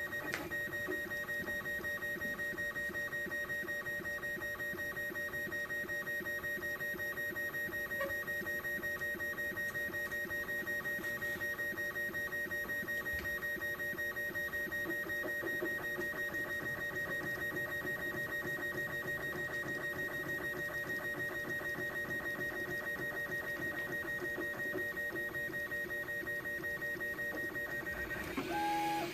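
MakerBot Replicator 2 desktop 3D printer printing in PLA: its stepper motors buzz in quick, stuttering runs as the print head moves, over a steady high tone. The pitch pattern changes near the end.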